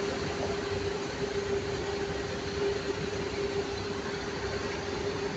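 Cars driving through a flooded street, their tyres swishing through standing water, over a steady hum.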